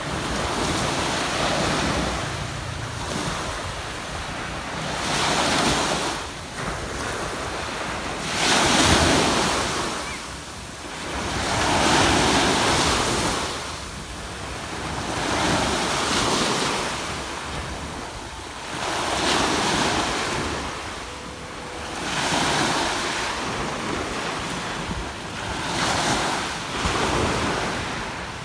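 Waves breaking and washing up on a sandy beach, the surf swelling and falling every two to three seconds, with wind buffeting the microphone.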